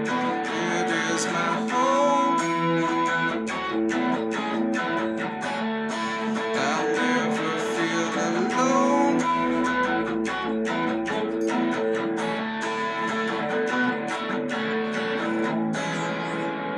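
Electric guitar strummed with a pick, chords ringing between many quick strokes.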